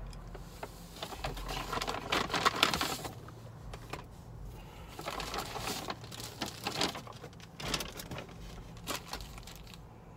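A paper bag rustling and crinkling in several bursts, with small clicks, as it is handled and items are taken out of it.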